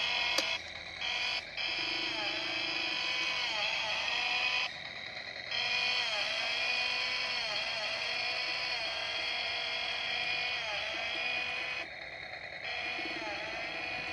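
Toy Stihl chainsaw playing its electronic engine sound through a small speaker, a buzzy running note that dips in pitch over and over in a repeating loop. It cuts out briefly three times, about half a second in, near five seconds and near twelve seconds, then carries on.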